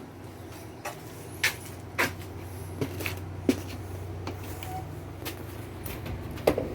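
Scattered knocks and clicks, about ten spread over several seconds, from someone moving about and handling things inside a small travel trailer, over a low steady hum. The loudest is a quick double knock near the end.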